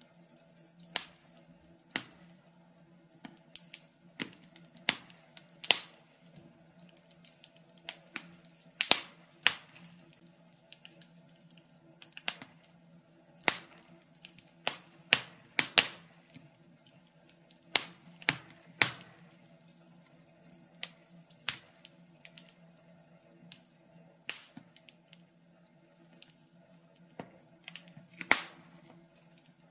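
Wood logs burning in a fireplace, crackling with irregular sharp pops and snaps about once a second, over a faint steady hum.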